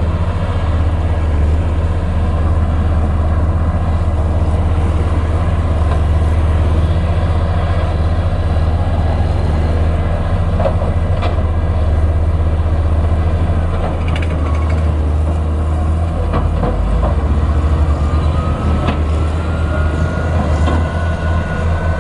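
Komatsu PC210LC excavator's diesel engine running steadily with a deep rumble, a few sharp metal clanks in the middle, and a slowly rising whine over the last third.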